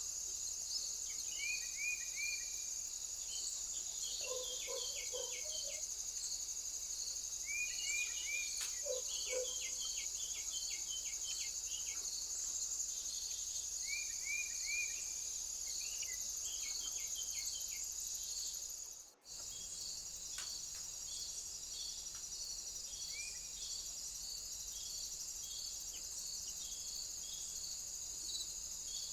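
Steady high-pitched cricket and insect chorus, with a chirp repeating about twice a second. Short runs of quick bird calls break in several times during the first half and a couple of times later. The sound cuts out for a split second about nineteen seconds in, then the chorus resumes.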